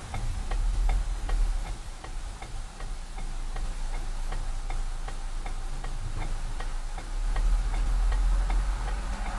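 A car's turn signal ticking at an even pace while signalling a left turn, over the low rumble of the car slowing to a stop.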